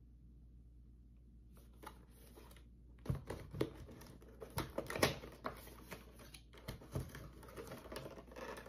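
Small cardboard product box being opened by hand: after a quiet start, a run of crinkling, scraping and sharp tapping clicks as the flap is worked open and the box is handled.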